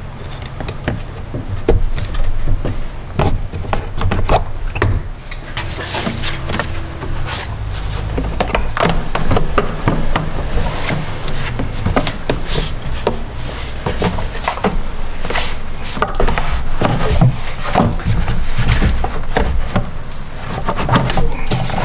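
Plastic air intake duct being twisted, rocked and pulled off the throttle body by hand: irregular knocks, clicks and plastic rubbing on plastic and rubber.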